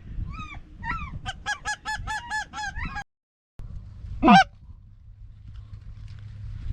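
Goose honking: a few separate honks, then a fast run of clucking honks about five a second, and after a brief dropout, one loud honk sweeping upward in pitch.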